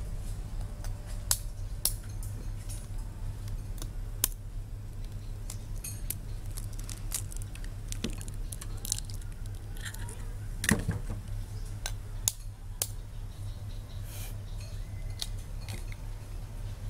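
Eggs being cracked into a ceramic bowl, with a metal spoon clinking against shell and bowl: scattered sharp taps and clicks over a steady low hum.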